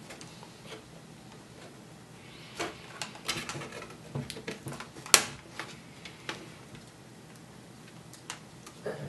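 Scattered sharp plastic clicks and snaps as a plastic pry tool works under a laptop keyboard and its retaining clips pop free of the palm rest, the loudest snap about five seconds in.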